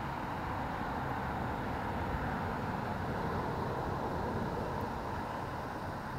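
Steady outdoor background noise: a constant hiss over a low, unsteady rumble, with no distinct events.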